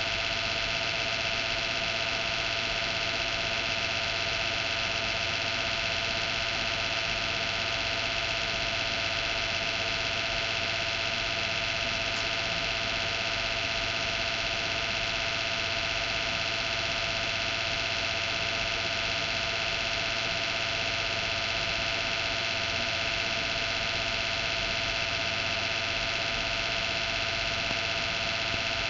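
A computer's abnormal noise: a loud, steady whine made of several held tones over a hum, without let-up. The owner takes it for a sign that the PC is near the end of its life.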